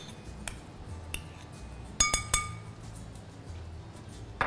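A spoon clinking against a bowl as tomato paste is added to a marinade: a few light taps, then three quick ringing knocks about two seconds in, and one more tap near the end.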